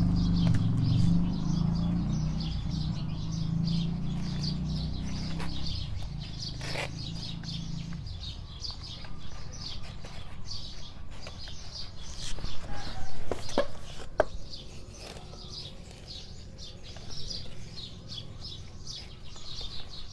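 Birds chirping repeatedly in the background over a low hum that fades away during the first several seconds. Around the middle come a few light knocks and rustles as gloved hands press potting mix into plastic pots.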